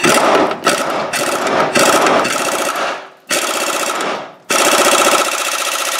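Snap-on impact wrench hammering on a rusted leaf-spring mounting bolt, in three runs with short breaks about three seconds in and again just past four seconds.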